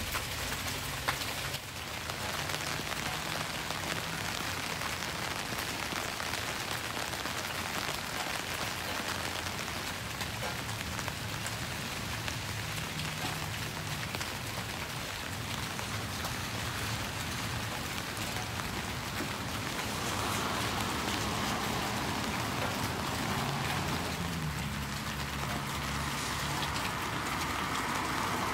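Steady rain falling on pavement and other hard surfaces, an even hiss of many drops. In the last seconds a car on the wet road comes closer and grows louder over the rain.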